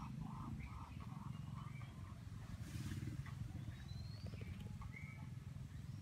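Outdoor animal calls over a steady low rumble. In the first second or so there is a quick run of short repeated calls, and a few rising whistled bird calls come later.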